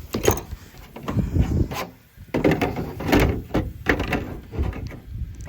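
Plastic inside trim piece of a roof vent fan being handled and pushed into the cut opening in a van's sheet-metal roof: an irregular series of knocks, bumps and scraping rubs as it is test-fitted.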